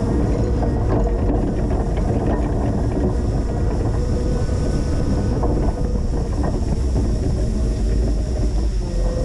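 Linde H20 EVO forklift running steadily while plowing snow, with a steady hum that fades partway through and comes back near the end.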